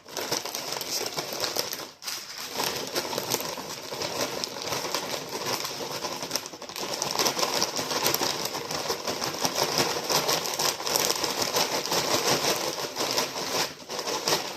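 Crinkling of a Ruffles potato chip bag and chips rattling inside it as chips are taken out, a dense run of small crackles and clatters with a brief pause about two seconds in.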